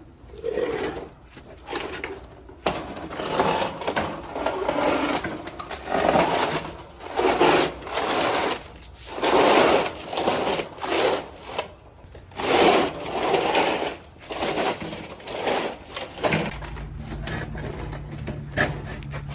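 A small motor running in repeated short bursts of about half a second to a second. Near the end a steady low hum starts.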